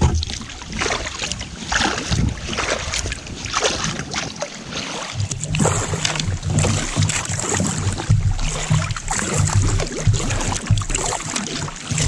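Sea kayak being paddled through choppy water: irregular paddle strokes splashing and water slapping the hull. From about five seconds in, wind buffets the microphone with a low rumble.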